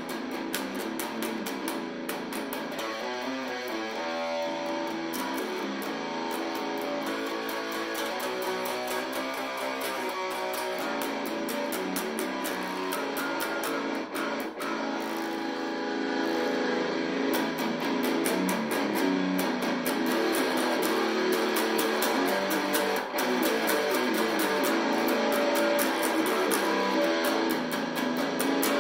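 Electric guitar played continuously through an Orange Micro Terror 20-watt tube head and cab, distorted by a grunge distortion pedal with the head's own gain set very low. Fast picked riffs and chugs, thin in the deep bass.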